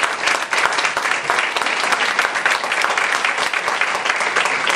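Audience applauding: many hands clapping at once in a steady, even patter.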